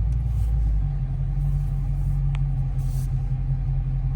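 SRT-swapped Chrysler 300's V8 engine running at low speed, a steady low rumble, with a brief high squeak a little past halfway.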